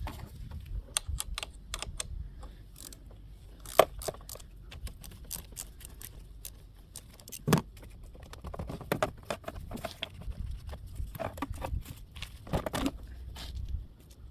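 Hand tools and metal hardware clicking and clinking while a car battery is disconnected and lifted out. Scattered light clicks throughout, with two louder knocks about four and seven and a half seconds in.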